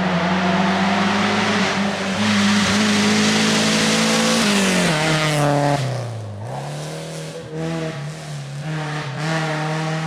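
Alfa Romeo GTV6's 2.5-litre V6 engine held at steady high revs for about four seconds, then dropping away to a much lower speed and picking back up, running unevenly to the end.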